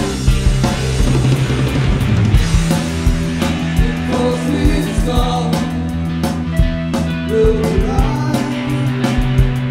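Rock band playing a song live: a drum kit with regular hits and cymbals, electric guitar and keytar synth over steady held low notes.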